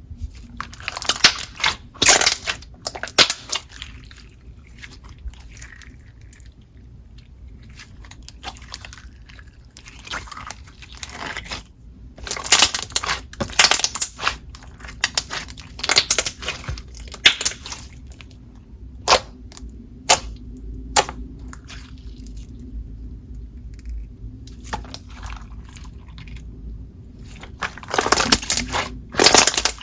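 Clear slime with shell-shaped sequins being poked and squeezed by hand, making irregular bursts of clicks and small bubble pops, with a slight crunch from the sequins.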